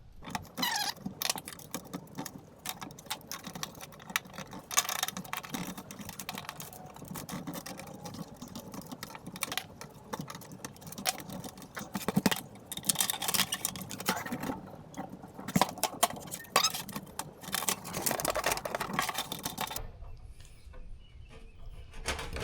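Irregular clicking, tapping and scraping of hand work on a garden tractor's sheet-metal side panel, as the small tabs are bent to fix the screen onto the new panel. The activity dies down about twenty seconds in.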